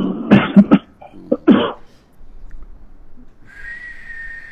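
Several short, loud bursts from a person's voice in the first two seconds, then a steady high whistling tone lasting over a second that rises in pitch at the end.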